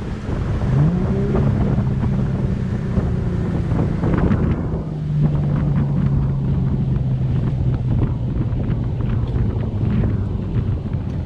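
Car engine running, rising in pitch about a second in and then holding a steady pitch, under heavy wind buffeting on the microphone.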